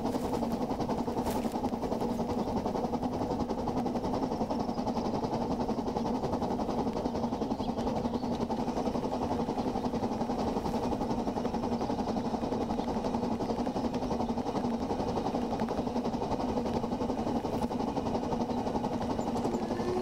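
A steady, unbroken mechanical hum holding one low pitch and its octave, with no rises, falls or breaks.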